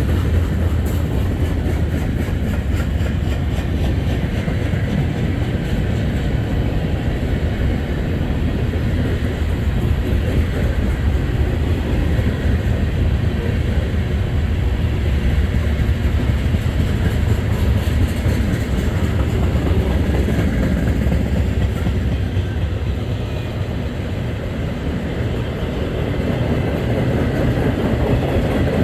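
Freight train rolling past, a continuous loud rumble of cars' wheels on the rails, easing slightly about three quarters of the way through.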